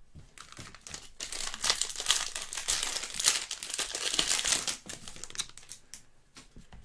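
Foil wrapper of a trading-card pack crinkling and tearing as it is pulled open by hand, a dense crackle that builds after about a second and a half and dies away near the five-second mark.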